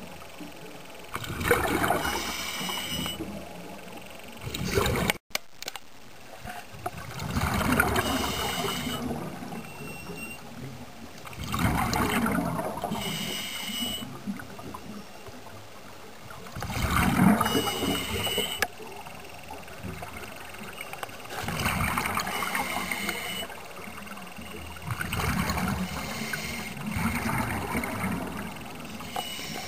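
Underwater water noise: gurgling, bubbling rushes that come in bursts about every four to five seconds over a low steady wash. There is a brief dropout about five seconds in.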